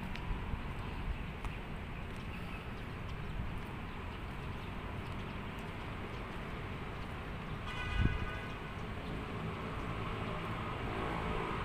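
Outdoor roadside ambience: a steady low rumble with a single thump about eight seconds in, a brief buzz around it, and a faint buzzing hum that grows near the end.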